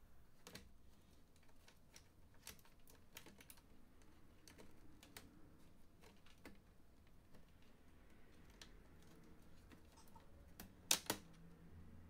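Faint, scattered plastic clicks as a plastic pry tool works along the seam of a laptop's bottom case, with two louder snaps close together near the end as the case's clips pop loose.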